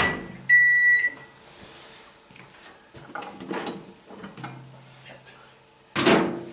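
Microwave oven's end-of-cycle beep: a single high, steady beep about half a second long, the last of a series, with a sharp click just before it. Faint handling sounds follow, and a louder knock comes near the end.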